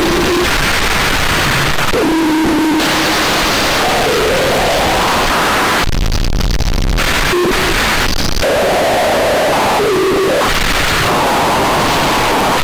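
Harsh digital noise music: loud, dense static and hiss chopped into blocks that switch abruptly every second or two, with short pitched tones buzzing through here and there.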